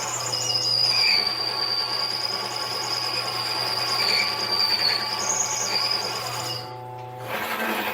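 Harbor Freight mini lathe running and cutting metal, with a steady high-pitched squeal from the tool on the workpiece over the motor's low hum. The sound drops away briefly near the end, then resumes.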